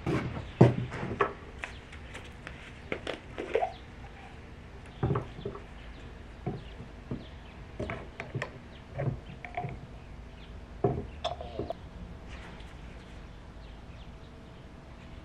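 Small plastic pesticide bottles being handled on a wooden deck rail: caps twisted off and set down, and bottles knocked against the wood, in scattered irregular clicks and knocks.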